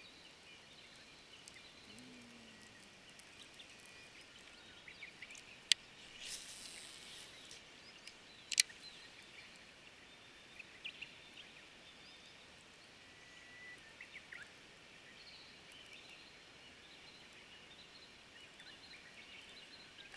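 Quiet outdoor ambience by still water with faint, scattered bird calls, including a short whistle about halfway through. Two sharp clicks stand out, about six and nine seconds in, with a brief hiss between them.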